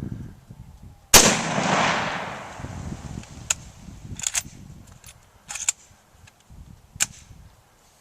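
A single rifle shot, 7.62x54R, about a second in, its report rolling away for a second or two. Several sharp clicks follow over the next few seconds.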